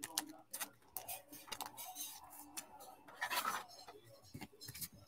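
Gloved hands handling a trading card and clear plastic card stands: a run of small clicks and taps, with a brief rustle a little past three seconds in.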